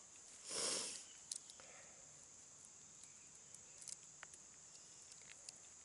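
Faint clicks and taps of roasted hickory nut shells being cracked and picked apart with a hand tool, after a short rush of noise about half a second in. A steady high insect drone runs underneath.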